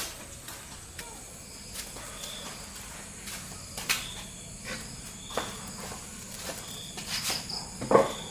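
Insects chirping in short high calls that repeat every second or two, with scattered sharp clicks and knocks. The loudest is a fuller knock near the end.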